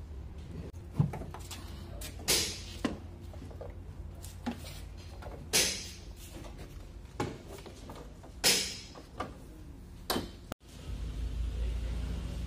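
Irregular metal clunks and knocks, a few louder ones with a short ring, as the removed door and body parts of a Jeep Wrangler are handled. A steady low hum takes over near the end.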